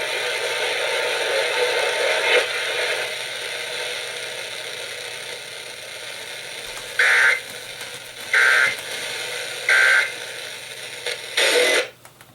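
Static hiss from a radio receiver, slowly fading, then three short two-tone EAS digital data bursts ('burps') about 1.3 s apart, typical of the SAME end-of-message code, followed by a brief burst of noise near the end.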